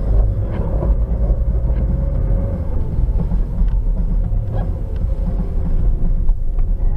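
Steady low rumble of a car driving on a snow-covered road, engine and tyre noise heard from inside the cabin through a dashcam microphone.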